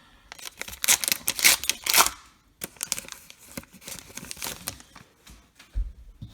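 A baseball card pack wrapper being torn open with effort: loud tearing for the first two seconds or so, then softer crinkling of the wrapper, and a single low thump near the end.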